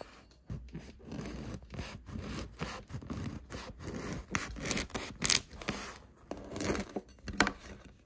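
A wide cleaver-style knife sawing through the crust of a ciabatta loaf on a wooden board: short scraping, crackling strokes, with a few louder crunches in the second half.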